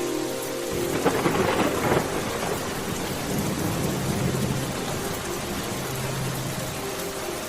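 Steady rain with a roll of thunder that breaks about a second in and rumbles away over the next two seconds.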